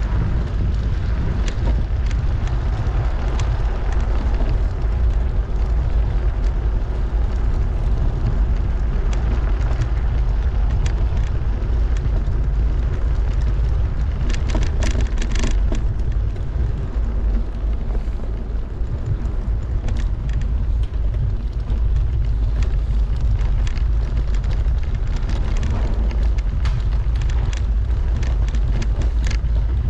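Steady low wind rumble on a bike-mounted action camera's microphone while riding, with scattered rattling clicks from the bicycle rolling over cobblestones, densest about halfway through.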